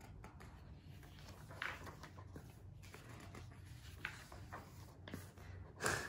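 Faint rustle of glossy magazine pages being turned by hand: a few soft swishes, the last one near the end the loudest.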